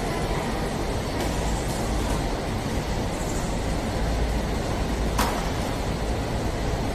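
Automatic jar filling and capping line running: a steady mechanical din from the conveyor and machines, with a single sharp clank about five seconds in.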